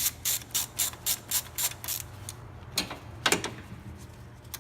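Ratchet wrench with a 10 mm socket clicking steadily, about four clicks a second, as a bolt is backed out of the engine. Two louder scraping knocks follow about three seconds in.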